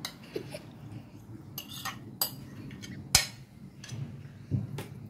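A metal spoon scraping and clinking against a dish and a plate while grated tomato is scooped out, a series of short, irregular clinks with the sharpest about three seconds in.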